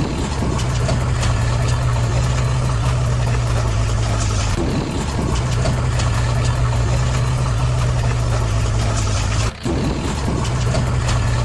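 Heavy vehicle engine idling steadily with a low hum, an engine sound laid over plastic toy machines that have no engine of their own. It cuts out briefly about nine and a half seconds in, then resumes.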